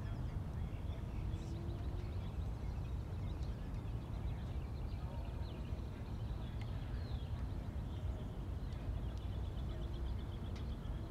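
Outdoor background: a steady low rumble with faint, scattered high chirps and short trills.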